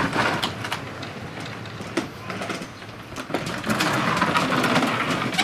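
6V battery-powered ride-on toy motorbike rolling along, its hard plastic wheels rattling and clicking over the ground, getting louder about two-thirds of the way in.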